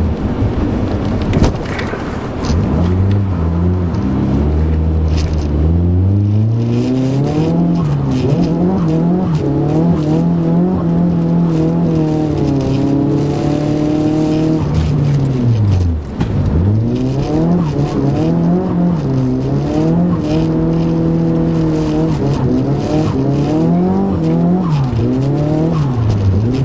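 Car engine heard from inside the cabin, its revs rising and falling again and again as the car is driven hard and drifted. The revs fall away low about sixteen seconds in, then climb again.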